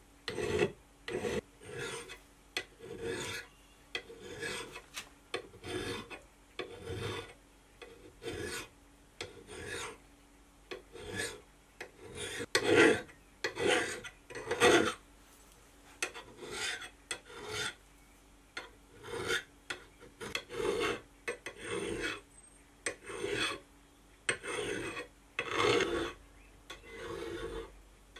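A hand file rasping along the edge of a steel axe head in repeated short strokes, about one a second, with a few heavier strokes about halfway through.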